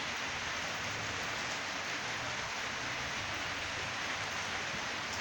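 Steady rain falling during a thunderstorm, an even hiss with no thunderclap.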